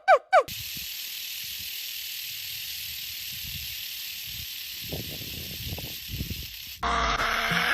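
A snake hissing, a steady high hiss held for about six seconds that stops abruptly. Near the end a loud animal cry with a falling pitch takes over.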